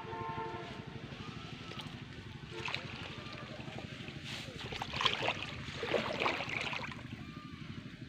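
Pond water sloshing and splashing around a person wading waist-deep and pushing a floating pile of banana leaves, swelling into louder splashing from about two and a half to seven seconds in.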